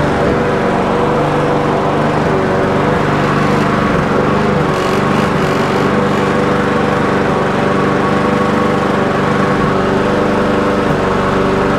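Petrol engine of a McCulloch M46-500CD self-propelled rotary lawn mower running steadily at a constant speed, restarted with its drive cable reconnected to check that the drive works.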